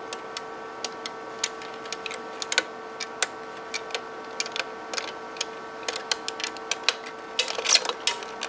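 Irregular light clicks, a couple a second and thicker near the end, as the advance knob of a Canon 300II microfilm scanner is turned by hand to wind the film onto the take-up spindle. Under them the switched-on scanner gives a steady hum.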